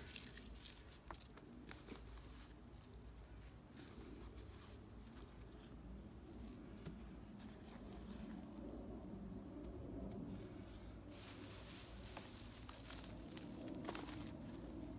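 Steady high-pitched insect chorus, with faint rustling and a few soft clicks as gloved hands crumble eggshells and work scraps into soil in a box.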